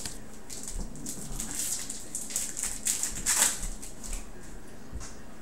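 Trading cards and card packs being handled on a table: a quick run of papery swishes and rustles, loudest about three seconds in, then a quieter stretch.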